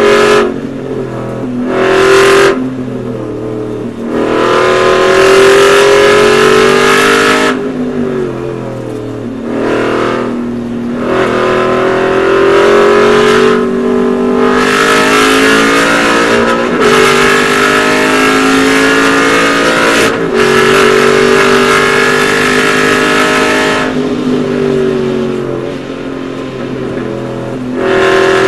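Aston Martin Vantage GT4's V8 racing engine heard from inside the cockpit, pulled hard at full throttle with its pitch climbing through the gears and dropping at each shift, then lifting off and coming back on the throttle again several times.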